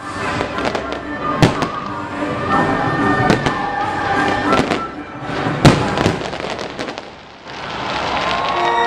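Aerial fireworks shells bursting in rapid succession, crackling, with the loudest bangs about a second and a half in and again past the middle, over music. Near the end the bangs die away and the music carries on.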